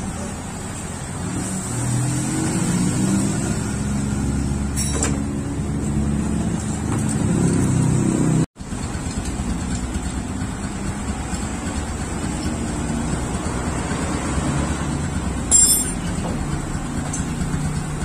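Yamaha LC135's single-cylinder four-stroke engine running. It revs up a little just before a cut about halfway through, then idles steadily.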